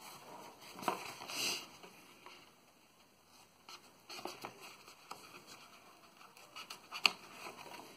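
Scissors cutting through a sheet of EVA foam, with irregular soft snips and the foam sheet rustling as it is handled. One sharper click comes about seven seconds in.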